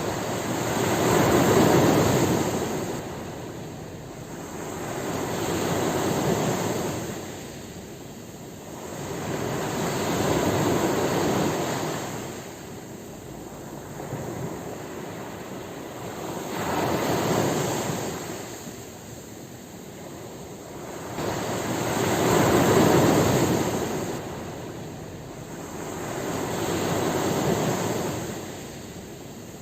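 Ocean waves washing onto a shore: surf noise that swells and fades about every four to five seconds, seven waves in all.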